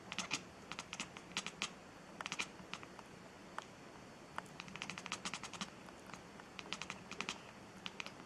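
Quick, light clicks and taps in irregular clusters, over a faint steady hum.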